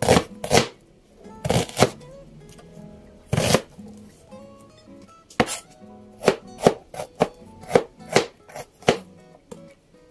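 Kitchen knife chopping onion and ginger on a plastic cutting board: sharp knife strikes on the board, a few spaced-out cuts at first, then quicker chops in the second half.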